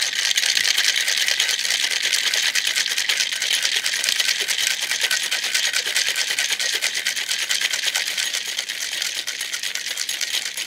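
Ice cubes rattling inside a two-piece metal cocktail shaker shaken hard to chill a drink: a dense, even clatter of many quick knocks.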